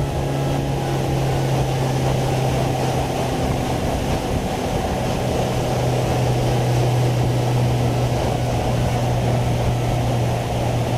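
Small fishing boat's motor running steadily at cruising speed, a constant low drone with water rushing along the hull.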